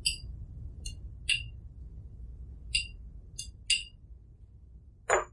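A utensil clinking against glass while mayonnaise is dished into a shot: about six light, high-pitched clinks, then a louder, duller knock near the end.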